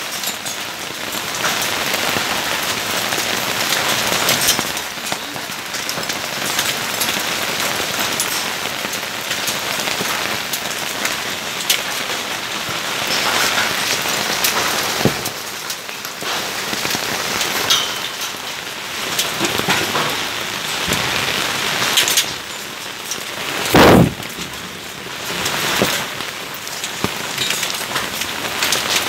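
Heavy rain and hail coming down, a steady dense hiss scattered with sharp ticks of hailstones striking. There is one brief loud thump about five seconds before the end.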